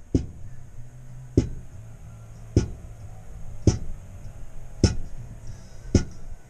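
Background music with a slow, steady drum beat: a deep thump about once a second, each dropping quickly in pitch, over a low steady hum.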